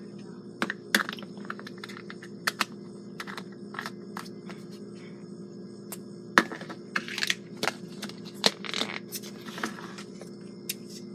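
Slime being squished and stretched by hand, giving scattered sharp clicks and pops, with a busier run of crackling and squelching about two-thirds of the way through.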